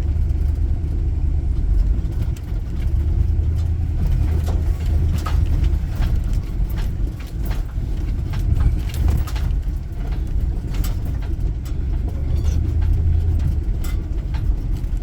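A two-wheel-drive van driving slowly over a rough dirt road: a steady low engine hum with many scattered knocks and rattles from the bumps.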